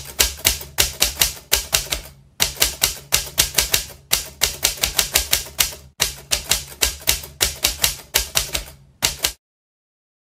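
Typewriter sound effect: rapid key strikes clacking in several quick runs, with short breaks between them, over a low steady hum. It stops abruptly about nine seconds in.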